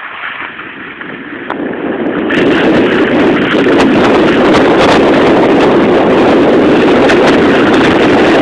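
Wind rushing over the camera microphone. It builds over the first two to three seconds and then stays loud and steady.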